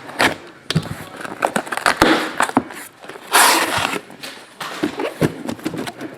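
Hands working at a heavily taped sealed box of trading cards: packing tape and cardboard scraping, peeling and crinkling in a run of short scrapes and clicks, with one longer scraping, tearing noise about three and a half seconds in.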